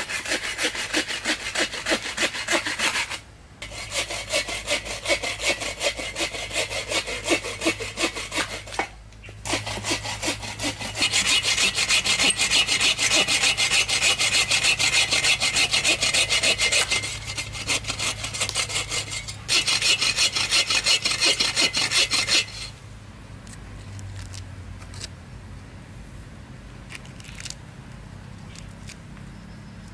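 Hand bow saw cutting through a log with rapid back-and-forth strokes, breaking off briefly a few times and stopping about two-thirds of the way through. After that only faint scrapes and clicks of a knife blade on the wood.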